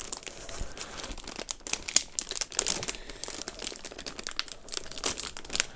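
Retail packaging being opened and handled by hand: rapid, irregular crinkling and rustling with quick small clicks.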